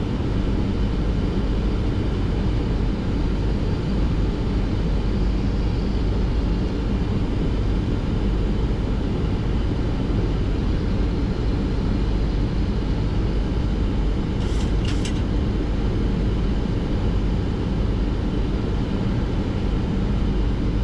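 Steady flight-deck noise of a Boeing 737-800 on approach at about 160 knots with flaps 15: a constant rush of airflow and engine sound, heaviest in the low end. Two brief faint clicks sound about fourteen and a half seconds in.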